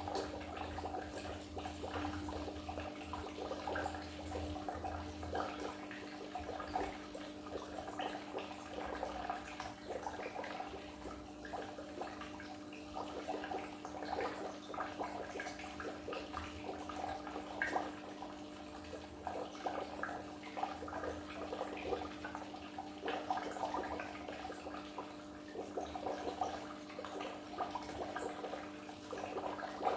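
Goldfish aquarium water, bubbling and trickling continuously in a dense patter of small splashes, over a steady low hum.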